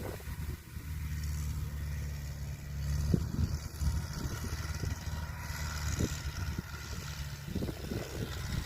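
Kubota DC70 combine harvester running, its diesel engine holding a steady low drone with a couple of short knocks from the machinery about three and six seconds in.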